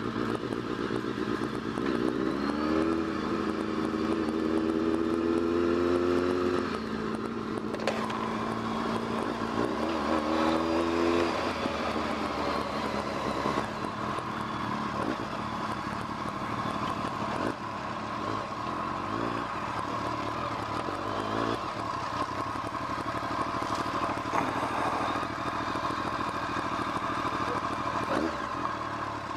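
Motorcycle engine heard from the riding bike at low speed: the revs rise and hold twice, in the first few seconds and again about ten seconds in, then it rolls along more gently.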